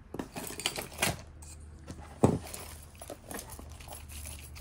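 A tangled handful of jewelry, bracelets and chains, clinking and jangling as it is pulled out of the box, with one sharper knock a little after two seconds in.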